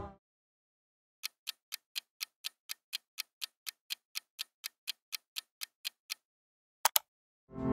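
Clock-ticking countdown sound effect: sharp, even ticks at about four a second for some five seconds, ending in two quick clicks.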